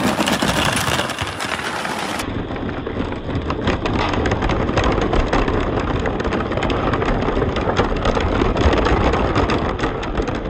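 A mass of marbles rolling and clattering down a handmade marble run: a dense, continuous rattle of many small clicks.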